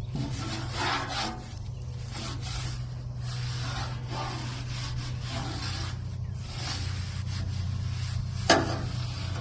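Cleaning strokes across the hot steel top of a Blackstone griddle: repeated rasping scrapes, about one a second, over a steady low hum, with a single sharp clank near the end.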